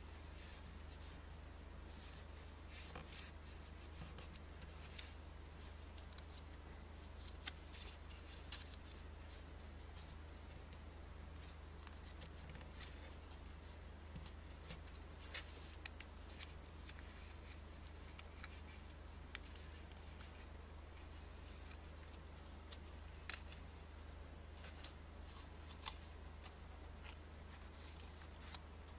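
A paper banknote being folded and creased by hand: faint, irregular crinkles and sharp crackles of the note's paper, over a steady low hum.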